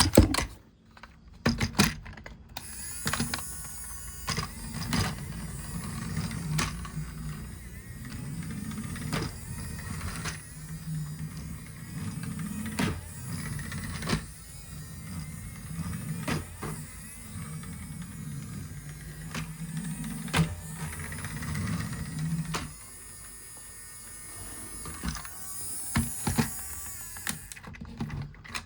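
Small electric motor of a battery-powered toy vehicle running with a steady hum, over frequent plastic clicks and knocks. The motor stops about three-quarters of the way in, leaving only scattered clicks.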